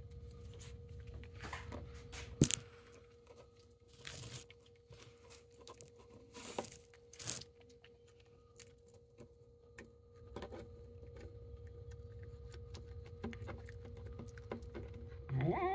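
A cat chewing and licking a piece of lamb: scattered small wet clicks and smacks, with a sharper click about two seconds in and a few brief louder scrapes, over a steady faint hum.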